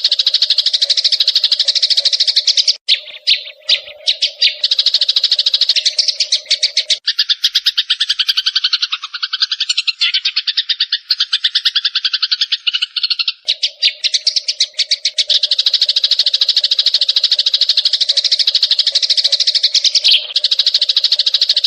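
Eurasian tree sparrows chirping in a loud, rapid, unbroken chatter. For several seconds in the middle a lower, fuller burst of chattering takes over, then the high chatter returns.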